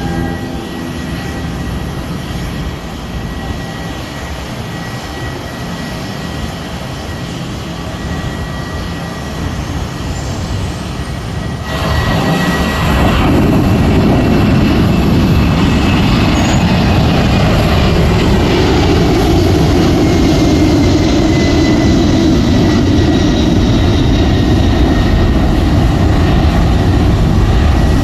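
Aircraft engines running at takeoff. About twelve seconds in the sound jumps suddenly louder and stays loud, a deep rumble with faint whining tones that slowly fall in pitch.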